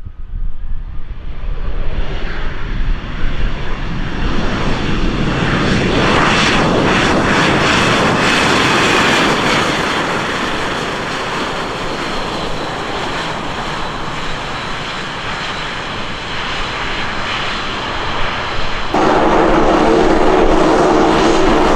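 Jet airliner engines at close range: the roar builds over the first several seconds and then holds loud and steady. Near the end it switches abruptly to a steadier engine sound with a buzzing tone in it.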